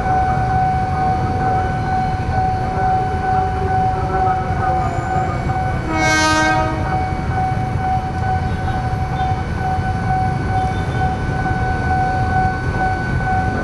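A KRL commuter electric train sounds its horn once, for about a second, around halfway through as it approaches the crossing. Beneath it, the level-crossing warning alarm holds a steady high electronic tone, over a constant low rumble of waiting motorcycles and traffic.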